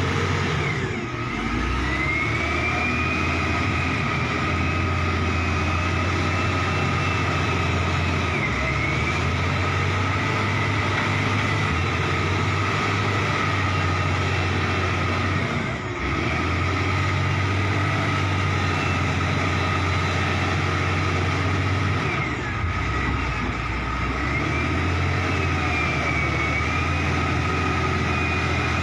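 Heavy construction machine's diesel engine running under load, with a high whine that rises and falls in pitch above a steady low drone, easing briefly a few times.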